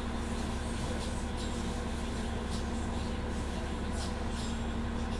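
Interior sound of an Orion VII NG CNG transit bus with a Cummins ISL-G natural-gas engine, running at a steady speed: a constant low rumble and a steady hum that neither rises nor falls, with frequent light rattles and clicks from the body.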